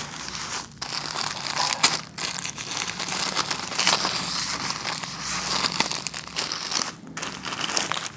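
Crinkly parcel packaging rustling and crackling as it is handled and pulled open by hand, in a steady run of small sharp crinkles.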